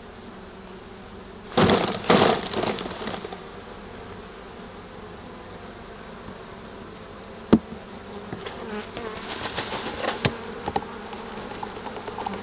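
Honeybees buzzing steadily around an open hive. About two seconds in, a frame of bees is shaken into a container with a loud burst of knocking and rustling. There is a single sharp knock midway, and more knocks and rustling later.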